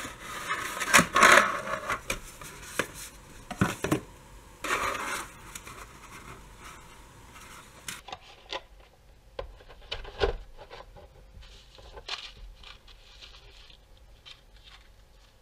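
Cardboard and plastic packaging rubbing and scraping as the LED light panel and its tray are slid out of the box sleeve, loudest in the first few seconds. About halfway through it drops to quieter handling of the tray and papers, with scattered light clicks and one soft knock.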